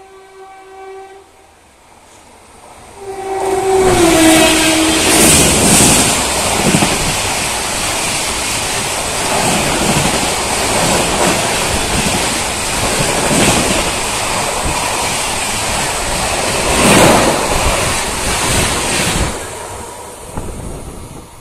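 Shatabdi Express passenger train passing close at full speed. The locomotive horn sounds briefly, then again about three seconds in, its pitch dropping as the locomotive goes by. The loud rush of the coaches follows, with wheels thumping over rail joints for about fifteen seconds, then fades near the end.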